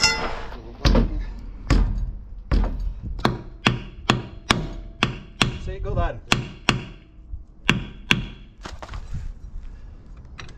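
A run of sharp knocks, about two a second at first and then faster, two to three a second, before fading to lighter taps after about eight seconds in.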